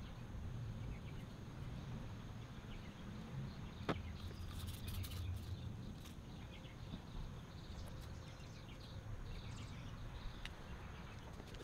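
Faint outdoor background: a steady low rumble, a few light scrapes, and a single sharp click about four seconds in.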